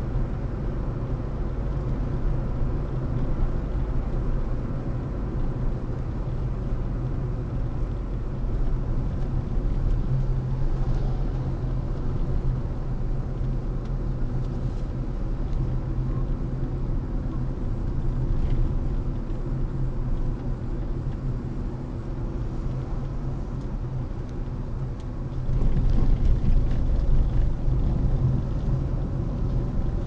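A car driving on a road: a steady low rumble of engine and tyre noise, which grows louder for a few seconds near the end.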